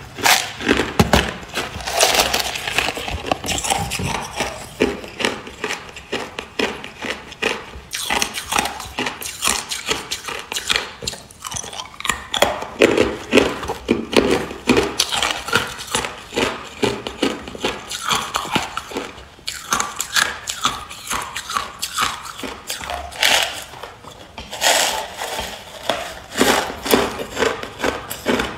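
Clear hard ice being chewed: a steady run of crisp crunching and cracking, broken by a few short pauses between bites.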